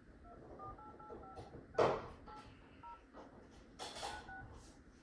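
Smartphone keypad dialing tones: about nine short two-note touch-tone beeps as a phone number is tapped in, with a loud knock about two seconds in.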